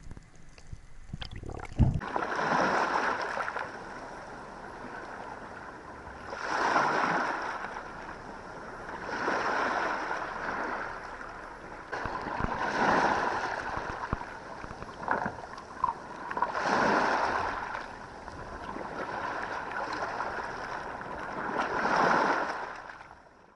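Sea water washing in repeated swells, one rush of water about every three to four seconds, fading out near the end.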